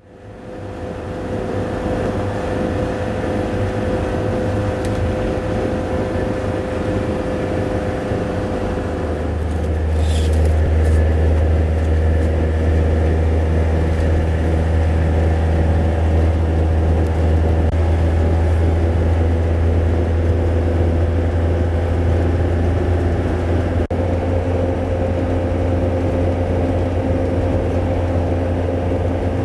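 Road and engine noise heard inside a vehicle driving at motorway speed: a steady low drone with a faint even hum above it, growing louder about nine seconds in. There is a brief rattle about ten seconds in.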